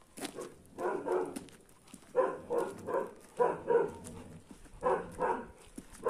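A dog barking repeatedly, the barks coming in quick runs of two or three.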